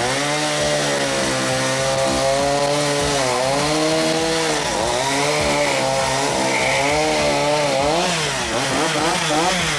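Chainsaw cutting through a firewood log, its engine running steadily under load. The engine note dips briefly a few times as the chain bites, more often near the end.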